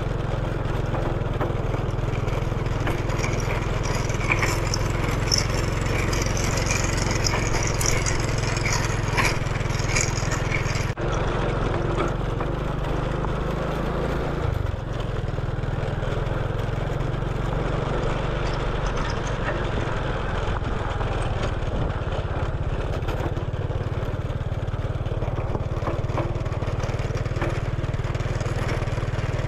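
Motorcycle engine running steadily as the bike is ridden, with scattered crackles and rattles through the first ten seconds. The sound dips briefly about eleven seconds in, and the engine note changes a few seconds later.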